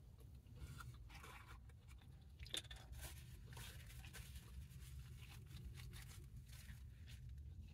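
Faint eating noises from someone eating a Big Mac: soft crunches and rustles of the burger and its wrapper, with a sharper click about two and a half seconds in, over a low steady hum.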